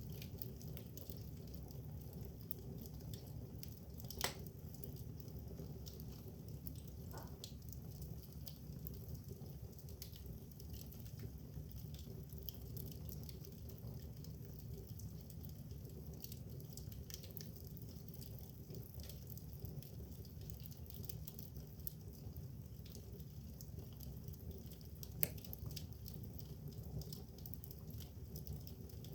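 Oak wood fire burning, with faint scattered crackles over a steady low rumble and two sharper pops, about 4 seconds and 25 seconds in.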